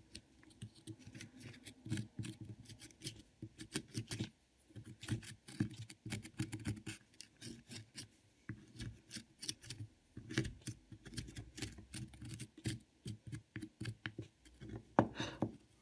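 Plaster block of a dinosaur excavation kit being scraped and chipped with a small hand digging tool: a run of quick, irregular scratches and clicks.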